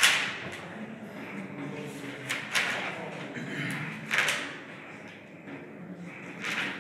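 Chalk writing on a chalkboard: scratchy strokes and taps of the chalk. The louder strokes come at the start and about two and a half, four and six and a half seconds in.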